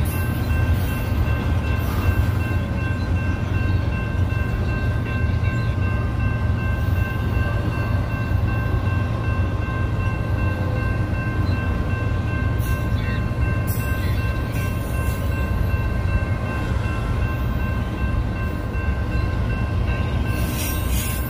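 Double-stack intermodal freight train rolling steadily through a grade crossing: a constant low rumble of wheels on rail, with steady high ringing tones held over it throughout.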